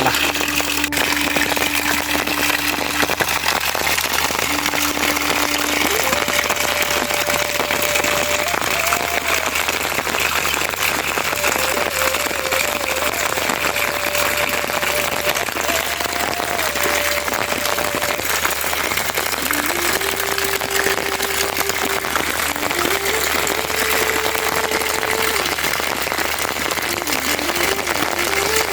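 Steady hiss of heavy rain, with a slow tune of single held notes, rising and falling in steps, faintly above it.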